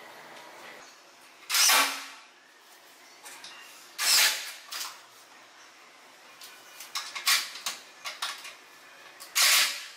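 Cordless drill-driver run in three short bursts of about half a second each, adjusting cabinet door hinge screws, with lighter clicks and knocks of handling between the later bursts.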